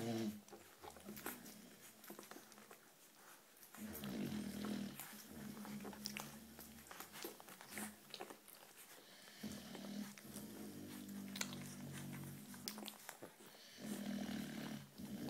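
American Bulldog puppy suckling at its mother's teat: soft wet smacking clicks, with three stretches of low, steady grunting a few seconds long, about four seconds in, at about ten seconds and near the end.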